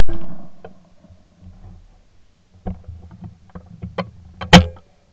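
A shotgun shot at a sporting-clays target, with a report that rings out for most of a second. It is followed by small clicks and knocks of gun handling and, about four and a half seconds in, another loud sharp crack.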